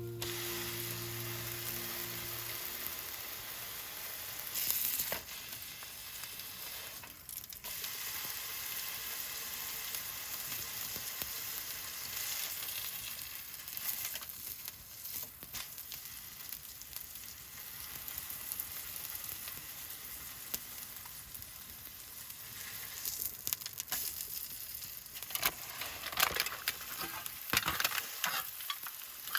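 Food sizzling as it fries in a hot pan, a steady hiss with sharper crackles and spatters near the end.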